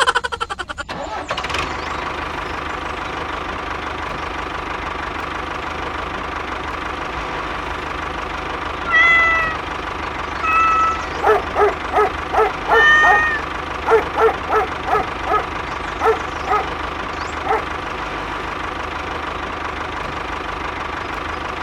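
A small motor starts with a quick run of ticks and then runs steadily with a constant hum. From about nine seconds in, many short high squeaks come over it.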